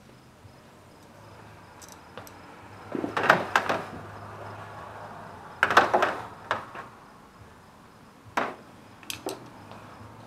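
Knocks and clatters of hard objects being handled, in a few short clusters a couple of seconds apart, over a faint steady hum.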